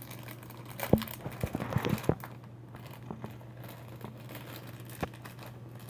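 Plastic toy packaging crinkling and crackling as it is handled and opened, a cluster of rustles and clicks for about a second, then a single click near the end, over a low steady hum.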